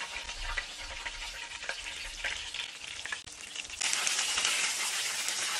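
Hot oil sizzling and crackling as flour-and-cornstarch-coated chicken drumsticks deep-fry in a pan, the sizzle getting louder about four seconds in.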